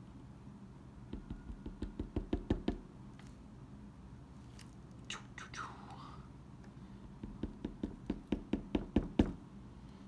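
Brass lock cylinder plug being tapped to knock its pins out one at a time: two runs of quick light knocks, about five a second, one about a second in and one near the end, each getting louder toward its close.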